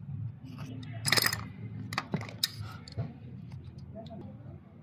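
Hand-tool work on a CV axle: a short rasping scrape about a second in and a few sharp metallic clicks, over a steady low hum.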